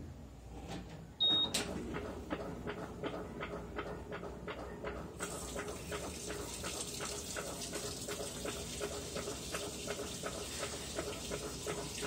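Electrolux LAI17 top-load washing machine beeping once about a second in, then its drain pump starting and running steadily with regular ticks about three a second as it drains the wash water. A steady water hiss joins from about five seconds in.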